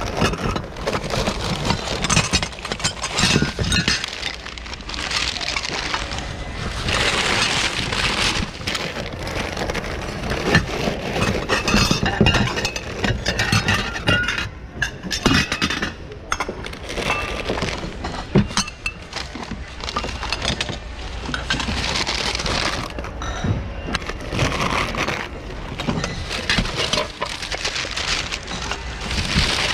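Continuous clatter and clinking of hard goods, glass among them, being shuffled and rummaged through in a thrift-store bin.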